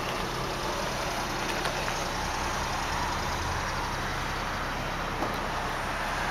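A 1999 Nissan Sentra SE Limited's 2.0-litre 16-valve four-cylinder idling steadily, heard from behind the car near its exhaust tailpipe as an even, low hum.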